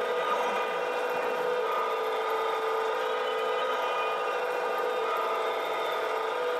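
Radio-controlled model excavator running, a steady mechanical whine while its arm and bucket are worked.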